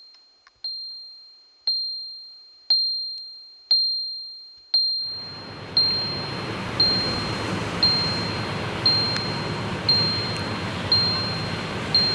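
A single high, bell-like ding struck about once a second, each stroke ringing out and fading before the next. About five seconds in, a steady hiss joins underneath and continues.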